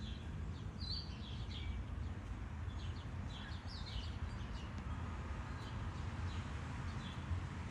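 Scattered short bird chirps and tweets in a garden, over a steady low background rumble.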